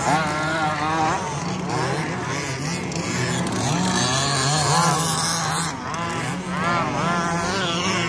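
Several large-scale 2WD Baja RC buggies' small two-stroke petrol engines racing, their pitches overlapping and repeatedly rising and falling as they rev up and back off.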